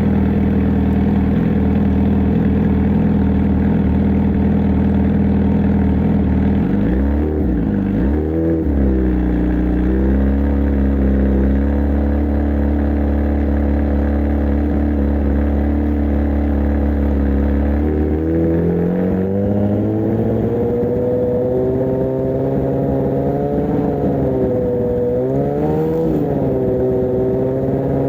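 A fully warmed engine held at steadily raised revs, run up in stages. It dips and climbs back about eight seconds in, steps up to a higher speed a little past halfway, wavers, and climbs again near the end.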